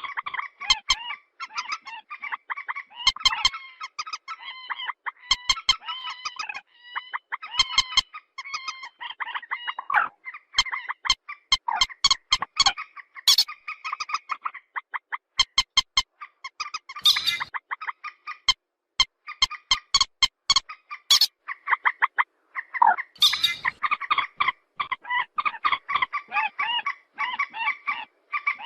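Purple swamphen calling: runs of short honking, cackling squawks in quick succession, broken by brief pauses every few seconds.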